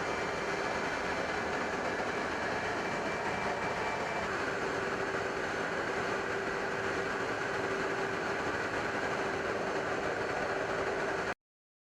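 Steady engine noise: an even rush with a couple of steady whining tones. It cuts off abruptly near the end.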